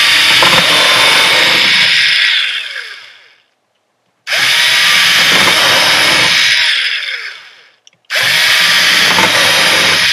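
Black & Decker cordless drill running in three bursts of about three seconds each, each winding down with a falling pitch as the trigger is let go, boring holes through duct tape and cardboard.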